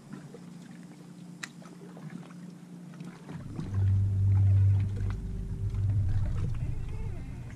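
Bow-mounted electric trolling motor on a bass boat coming on about three seconds in and running with a low hum and a steady faint whine over it.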